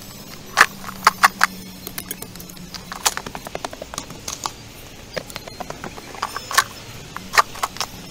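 Irregular sharp clinks and knocks of a short-handled digging tool striking stony soil and rocks.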